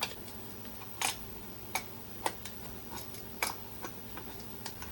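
Scattered sharp metallic clicks and light clinks, about six at irregular intervals, from hand tools and metal parts being handled during repair work on a skid steer.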